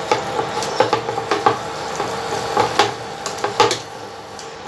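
Metal spoon stirring crumbled paneer and spinach in a steel pan over a light sizzle of frying, with several sharp clinks and scrapes of the spoon against the pan. It grows quieter near the end.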